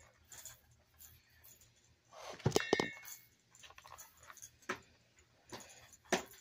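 A metal fork clinking and scraping against a plate, in a few short clicks and one louder ringing clink about two and a half seconds in.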